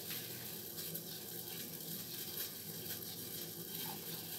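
Water at a rolling boil in a stainless steel saucepan, bubbling steadily with faint scattered pops.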